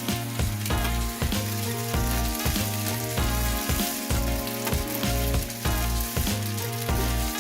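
Food sizzling and frying in a pan, with some stirring, over background music with a steady beat.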